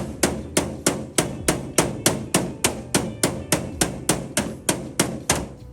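Hammer tapping a metal blank plate in light, repeated strikes, about three a second, rolling the plate into a curve to match the bus body's contour. The tapping stops near the end.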